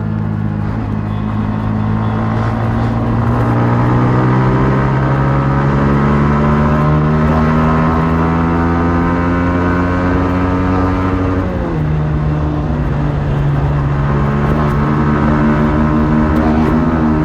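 Yamaha MT-15's 155 cc single-cylinder engine on its stock exhaust, running under load with the revs climbing slowly for about eleven seconds. The pitch then drops sharply and the engine pulls again, steady and then rising.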